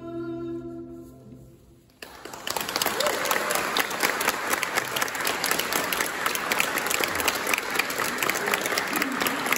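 A man's final held sung note with piano fades away, then about two seconds in audience applause breaks out suddenly and goes on steadily.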